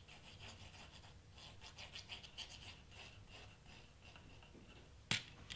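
Faint scratchy rustling of a liquid craft-glue bottle's nozzle tip drawn along a cardstock flap as the glue is squeezed on, with soft paper handling. A single sharp tap comes near the end.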